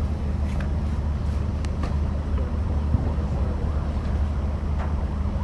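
Steady low rumble of outdoor background noise, with a few faint, sharp knocks scattered through it.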